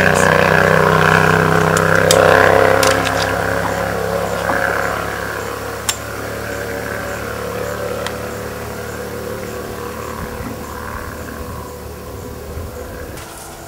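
A steady engine hum that slowly fades away, with one sharp click about six seconds in.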